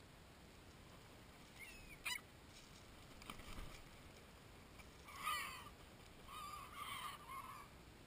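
Gulls calling: short, scattered squawks, the loudest about five seconds in, then a wavering run of calls near the end.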